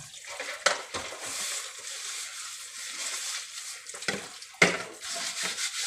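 Kitchen tap running into a sink while a plastic bowl is rinsed and scrubbed under the stream, with a couple of sharp knocks about a second in and again near the end, the later one the loudest.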